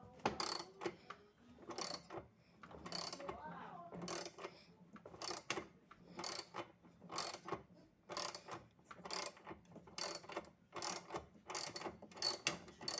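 A ratchet tool clicking in short repeated strokes, about one a second, as a fastener is worked.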